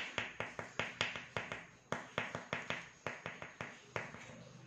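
Oil pastel stick tapped in quick dabs against paper on a tabletop, about four or five sharp taps a second, dotting on yellow flowers. The tapping pauses briefly about two seconds in and grows sparser and fainter near the end.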